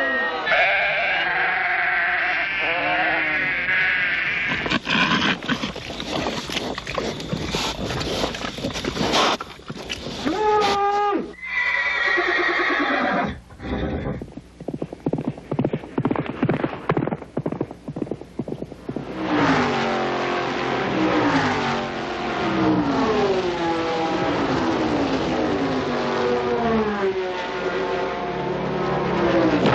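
A montage of recorded sound effects that changes every few seconds: pitched gliding calls, then a dense run of sharp clicks and knocks, then a long series of repeated falling calls.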